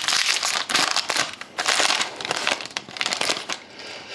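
Foil trading-card pack being torn open and crinkled in the hands, a run of loud crackling rustles that die down near the end.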